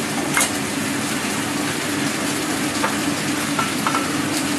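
Vegetables and mushrooms sizzling in a frying pan on a gas stove, a steady hiss with a low hum under it, and a few light clicks of a utensil against the pan.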